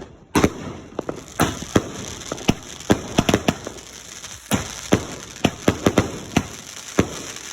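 Consumer firework cakes firing: an uneven string of sharp bangs, a few a second, with crackle between them and a dense cluster of shots about three seconds in.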